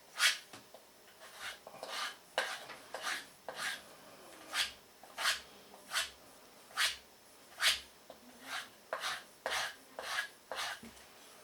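A Spyderco Delica 4 knife blade being drawn along a strop loaded with compound: a steady run of short, separate swishing strokes, about one every half to three-quarters of a second.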